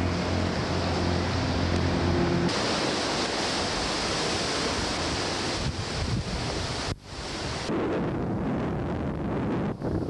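Waves washing onto the beach with wind rushing over the microphone, heard as a loud, steady rush. A low hum sits under it for the first couple of seconds, and the sound changes abruptly a few times.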